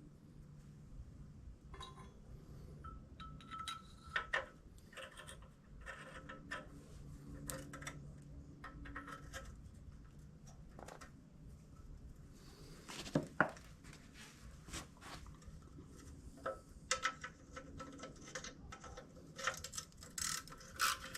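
Scattered light metallic clinks and taps of bolts and hand tools being handled as bolts are threaded in. Near the end a socket ratchet starts clicking in quick, even strokes.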